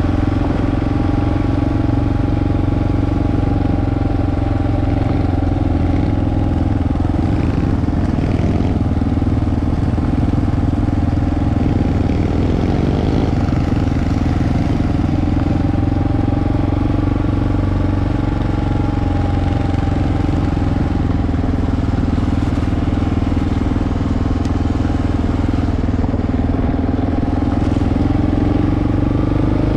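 Dirt bike engine running steadily at an even cruising speed, with no revving or stops.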